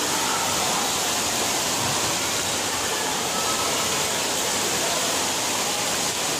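Water park ambience: a steady rush of falling and splashing water, with a faint din of distant voices.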